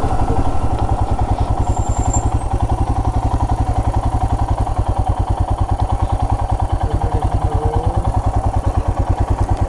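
Royal Enfield Himalayan's 411 cc single-cylinder engine running at low revs, with a steady, even, rapid beat.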